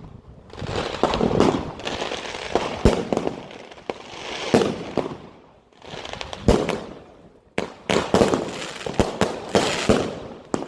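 Argento Sacramentum B, a 100-shot 30 mm fireworks compound cake, firing: a run of sharp launch shots and shell bursts with crackle between them, with short lulls about six and seven and a half seconds in.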